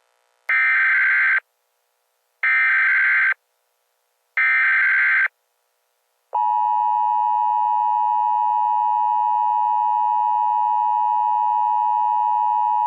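Emergency Alert System SAME header: three short bursts of digital data tones, each about a second long and two seconds apart. About six seconds in, the steady dual-tone EAS attention signal begins and holds.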